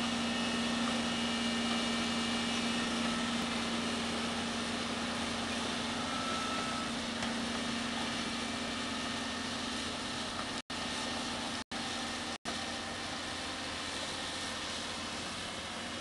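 Steady mechanical drone of a Doosan crawler excavator running a Daedong hydraulic vibratory sheet pile driver, with one low hum held throughout. The sound drops out for a split second three times a little past the middle.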